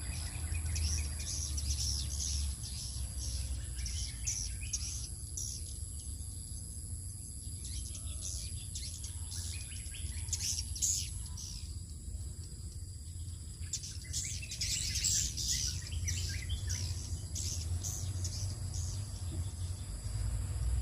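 A flock of edible-nest swiftlets twittering as they return to roost, in quick high chirps that crowd together about two thirds of the way in. A low rumble and a faint steady high tone run underneath, and the tone stops about halfway.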